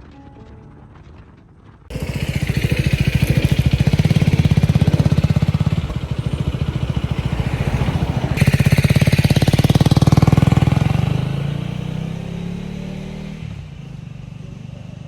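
Husqvarna Svartpilen 250's single-cylinder engine running, cutting in suddenly about two seconds in over quiet music. Its note steps up sharply about halfway through, then fades and drops in pitch near the end.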